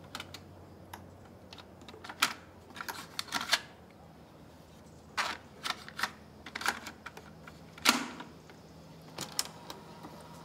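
About a dozen sharp clicks and clacks at uneven intervals, the loudest just before eight seconds in, over a faint low hum.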